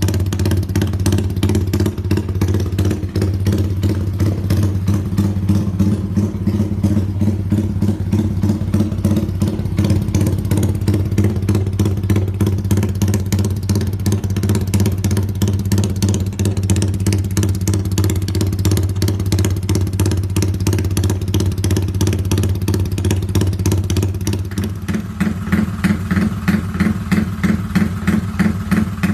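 Yamaha Y15ZR (MX King) 150 cc single-cylinder motorcycle engine idling through an aftermarket exhaust, with a lumpy, galloping 'rumble idle' beat from modified timing ('timing kuda'). The beat grows more marked near the end.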